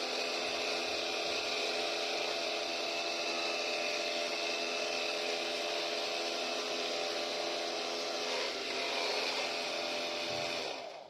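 Homemade mini vacuum cleaner's small 12-volt DC motor spinning a propeller fan, running steadily with a whine over rushing air. It cuts off suddenly near the end.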